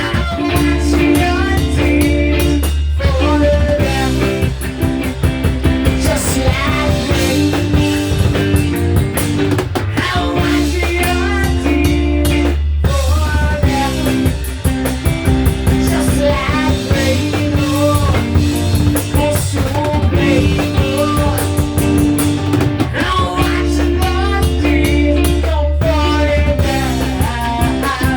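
Rock music with drum kit, bass and electric guitar, with a bending melodic line that may be a voice singing.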